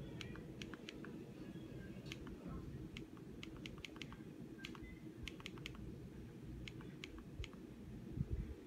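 Irregular plastic clicks of a TV remote's buttons, pressed about twenty times, sometimes in quick runs of three or four, over a steady low hum.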